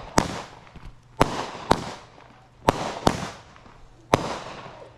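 Fireworks going off: six sharp bangs about half a second to a second apart, each trailing off in a fading crackle.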